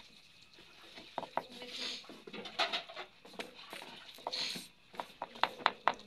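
Slotted metal spoon scraping and tapping against a plate as it spreads and flattens a crumbly semolina mixture, with a quick run of sharp clicks near the end.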